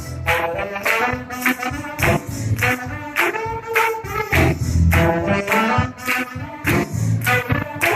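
Live gospel music with a saxophone carrying the melody over tambourine and a bass-heavy band, keeping a steady beat.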